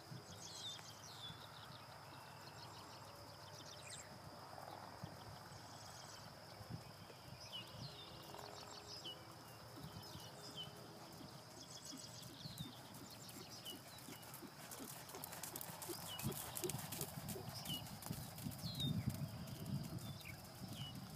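Muffled hoofbeats of a ridden horse moving over a sand arena, growing louder over the last few seconds as it comes close.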